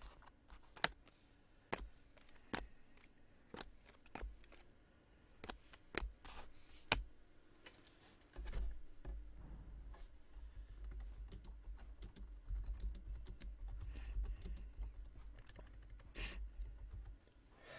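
Scattered light clicks and taps, about one a second. A low steady rumble joins about eight seconds in and stops shortly before the end.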